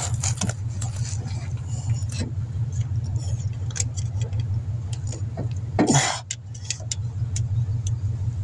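Fingers working a stuck, corroded plastic connector clip on an AC compressor's electrical plug: scattered small clicks and scrapes, with a louder scrape about six seconds in. Under it runs a steady low rumble.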